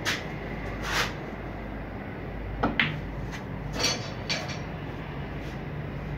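Snooker balls and cue giving two sharp clicks close together about two and a half seconds in, among a few duller knocks and handling clatter, over a steady low hum.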